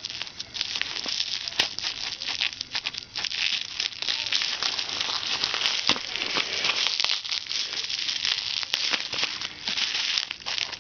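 Plastic bubble wrap crinkling and crackling continuously as hands pull it apart and cut it open with scissors, with many small sharp crackles.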